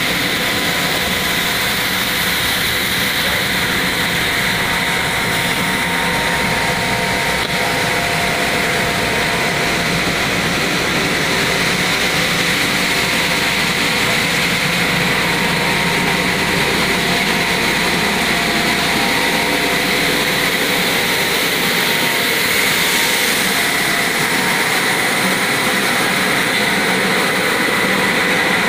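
PS/PE foam recycling machine running: a loud, steady mechanical drone with a constant high whine.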